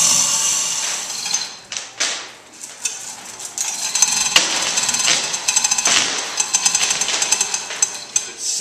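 Overhead chain hoist working the hanging boat hull: a steady whir that fades about a second in, then rapid metallic clicking and chain rattle through the last few seconds.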